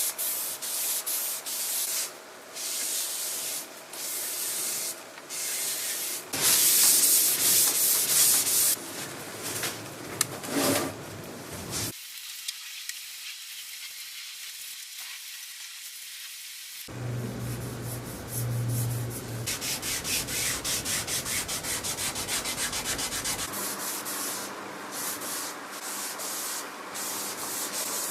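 Repeated hand strokes rubbing over a wooden furniture surface, scratchy and rhythmic, breaking off and restarting abruptly several times, with a quieter stretch of steady hiss in the middle and quick, even strokes near the end.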